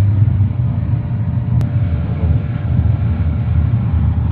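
Steady low machine rumble, with one faint click about a second and a half in.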